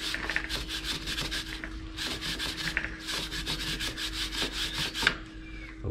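Stiff-bristled chain brush scrubbing rapidly back and forth along a motorcycle drive chain wet with chain cleaner, a quick run of even scratchy strokes with a short break about two seconds in, stopping near the end.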